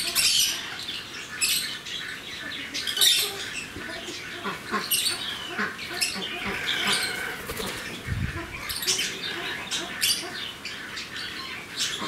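Pet parrots (macaws and conures) squawking and screeching in short, repeated calls, with wing flapping as a blue-and-gold macaw flutters on a perch.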